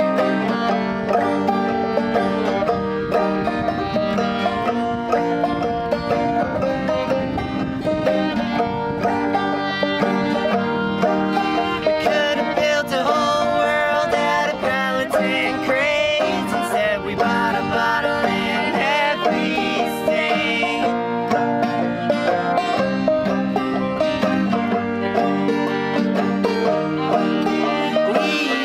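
Five-string banjo, fiddle and acoustic guitar playing a string-band tune in a bluegrass/old-time style, with singing over the instruments.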